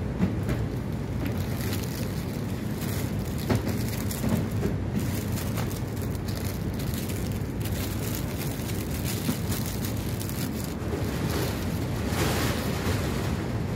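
Clear plastic flower sleeves crinkling and rustling under a gloved hand as packed flower bunches are shifted in a cardboard box, over a steady low rumble; the rustling is loudest near the end.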